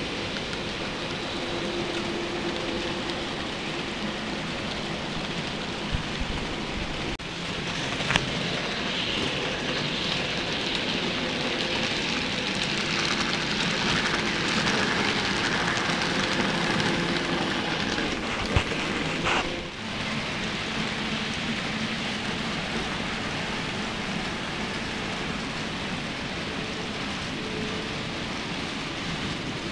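N-scale model trains running: a steady rushing rattle of small wheels on the track with a faint motor hum. It grows louder through the middle as a train passes close by, with a few sharp clicks along the way.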